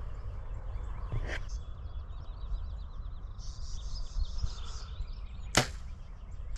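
Compound bow fired once, near the end: a single sharp snap as the string is released and the arrow leaves.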